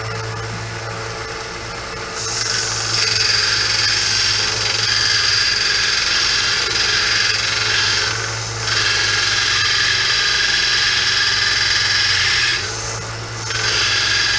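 Electric sander running, with the steel of a saw blade pressed against the abrasive: a steady motor hum, then from about two seconds in a loud, gritty grinding with a high ring as the metal is sanded. The grinding stops briefly twice as the blade is lifted off and set back.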